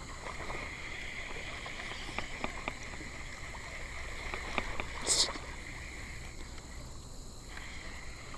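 Light water sounds with a scattered run of sharp clicks and one short hissing splash about five seconds in, as a hooked bass is played and brought in.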